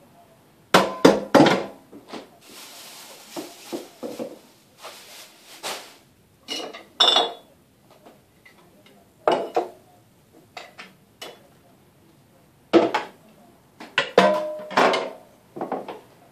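Glass jar and metal juicer jug clinking and knocking against each other and the tiled counter in irregular clusters, some clinks ringing briefly. There is a steady hiss from about two to six seconds in.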